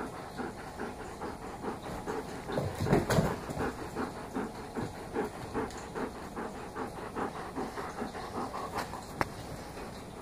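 A dog panting rapidly, about four to five breaths a second, close to the microphone.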